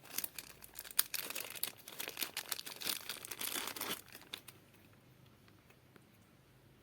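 Packaging being handled and crinkled as the quick release plate is taken out of its wrapping, a dense crackle that stops about four seconds in.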